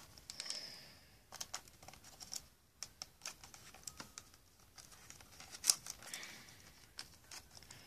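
Small plastic Lego bricks and a Lego chain clicking and rattling as they are handled and pressed onto the boat model's hull: scattered light clicks, with one sharper click a little over two-thirds of the way through.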